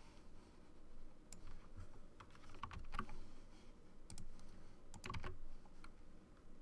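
Faint, irregular clicking of a computer keyboard and mouse, some clicks coming in short clusters.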